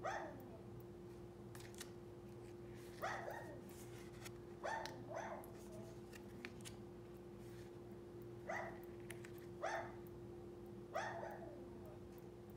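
A dog barking in short single barks, about seven of them a second or more apart, each dropping in pitch. Light clicks of stiff glossy cards being handled fall between the barks.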